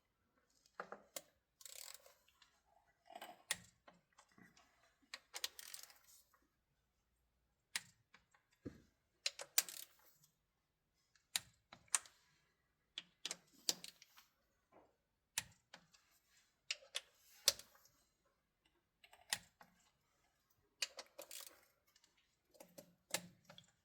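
Click-type torque wrench ratcheting and clicking as bolts are tightened one after another to 105 inch-pounds, with short sharp clicks spread irregularly through the stretch.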